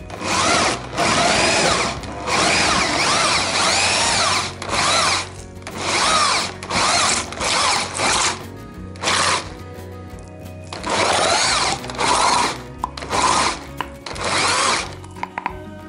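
Electric drill turning an old cast-iron hand meat grinder's auger through a socket fitted on its handle bolt, run on and off in short spells as meat and onion are fed in. The motor's whine rises and falls in pitch within each spell.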